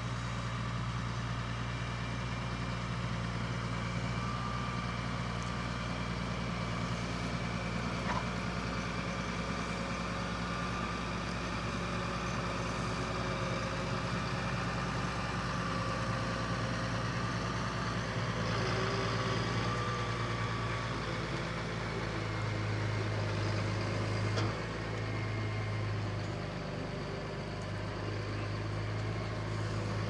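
Modern tractor's diesel engine running steadily under load while pulling a reversible mounted plough through stubble, its low note shifting slightly about three-quarters of the way through.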